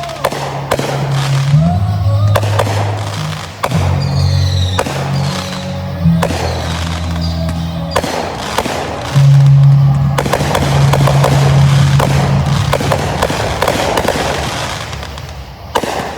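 Fireworks going off in quick succession, sharp bangs and crackling, with music playing over them.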